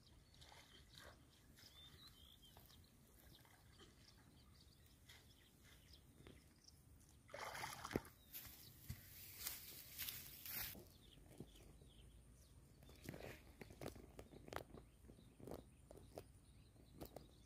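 Hands splashing and sloshing in shallow muddy water, faint, for a few seconds about halfway through, with one sharp click among the splashes. Scattered light rustles and steps in dry grass follow.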